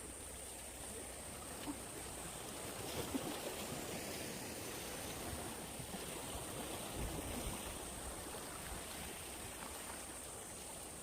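Faint, steady rushing water noise.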